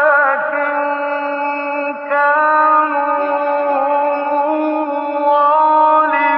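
A man's voice chanting Quranic recitation in the melodic tajwid style, holding long ornamented notes that waver in pitch. A new phrase begins about two seconds in.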